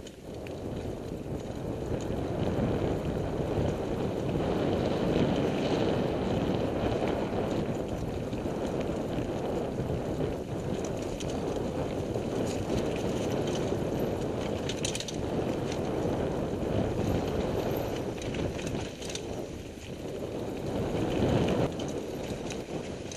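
Mountain bike rolling fast over a dirt forest trail, heard from a helmet-mounted camera: a steady rumble of tyres on dirt and leaves with scattered clicks and rattles from the bike over bumps.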